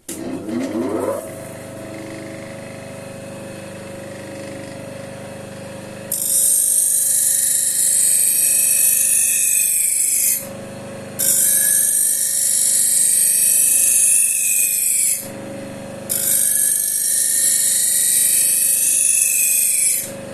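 Grinder motor spinning up with a rising whine, then running steadily with a hum. A knife edge is honed against a spinning slotted paper wheel charged with diamond abrasive in three passes, each a loud hiss of about four seconds, with short gaps of motor hum between them.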